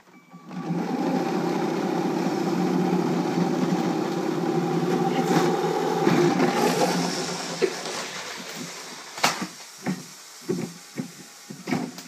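Small electric motors of a motorized LEGO Technic excavator whirring steadily as it hoists a LEGO train car on a chain, the whir fading out about seven seconds in. Then come several sharp plastic clicks and knocks as the lifted car shifts.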